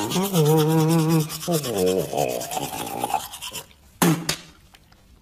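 Toothbrush scrubbing teeth in quick, even strokes, under a wavering hum from a voice. It stops after about three and a half seconds, and a short sharp sound follows near the end.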